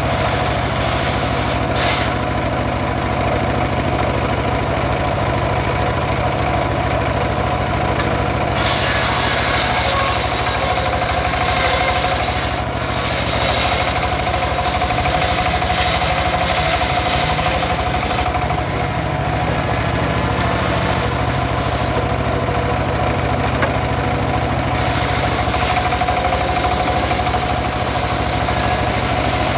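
Engine-driven homemade circular sawmill running steadily, engine drone under the hum of the spinning blade. From about eight seconds in until about eighteen seconds, and again near the end, the blade saws lengthwise through a sengon log, adding a loud hissing noise of cutting.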